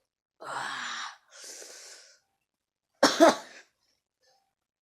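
A person breathing out hard twice, then coughing once, sharp and loud, about three seconds in, their mouth sore from eating six cough mints.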